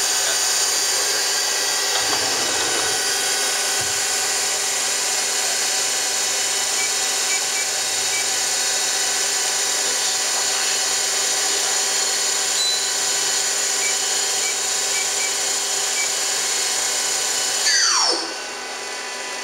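KIA CNC turning center running, its spindle turning at speed with a steady whine of several high tones over a mechanical hiss. Near the end a whine falls steeply in pitch and the machine sound drops to a lower level.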